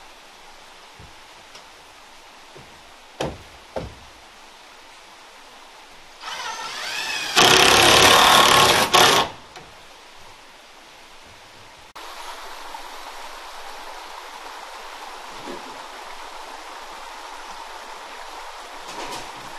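A handheld power tool whirs up to speed and runs loud for about two seconds, most likely cutting into a siding board; two sharp knocks come a few seconds before it. From about two-thirds of the way in a steady hiss sets in.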